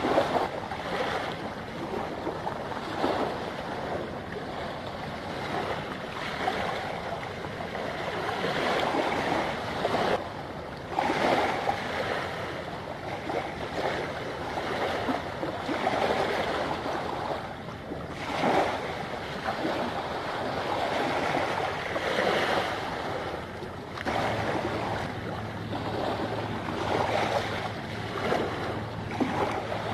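Small waves washing against the shore in surges every couple of seconds, with wind buffeting the microphone. About three-quarters of the way through, a low steady engine hum comes in under them.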